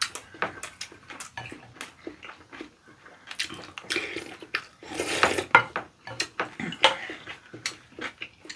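Mukbang eating sounds: spoons clicking and scraping against ceramic bowls, with wet chewing and smacking of kimchi fried rice. A denser stretch of wet mouth noise comes about five seconds in.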